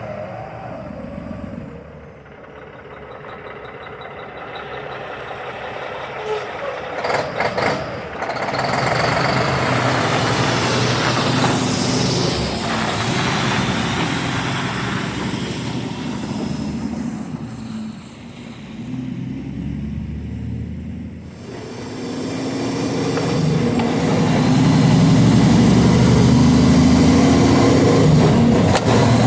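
Semi truck's diesel engine running as the truck pulls out, its level rising and falling, with a few sharp clicks about seven seconds in and the engine louder over the last few seconds.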